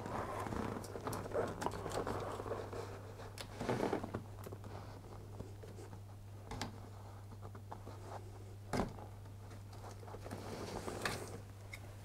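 Hands working a small tool against an engine-bay bracket to pry off a purge valve's retaining end clip: faint scraping and rustling with scattered light clicks, the sharpest about nine seconds in, over a steady low hum.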